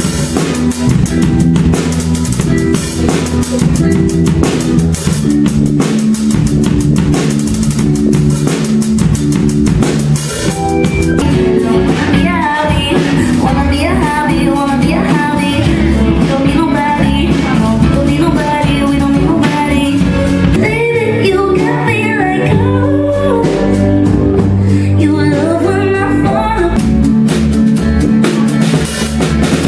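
Band music with a drum kit, bass and guitar playing steadily, and a wavering melodic line, likely a singing voice, through the middle.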